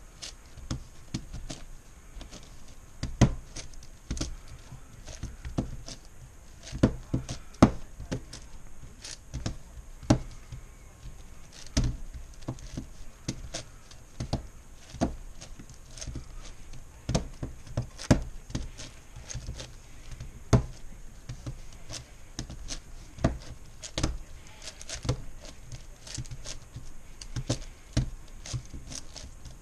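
Plastic MoYu Meilong 10x10x10 speed cube being turned one-handed while its edges are paired. Its layers click and clack irregularly, several times a second, with now and then a sharper knock.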